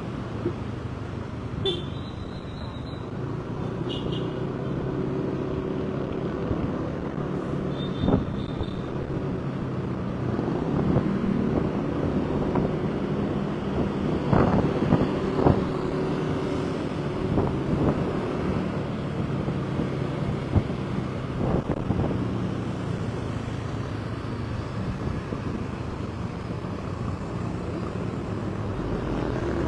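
Motor vehicle engine running steadily amid road traffic, with a few short high beeps and scattered knocks.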